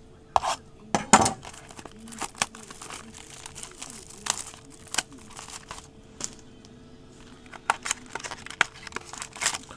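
Crinkling and tearing of a trading-card pack wrapper as cards and packs are handled: irregular crackles and snaps, the loudest about a second in.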